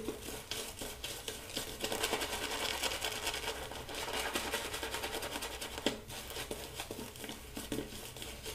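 Shaving brush with a synthetic B7 knot working lather on a stubbled face: a steady, quick scrubbing and swishing of dense bristles through the soap lather.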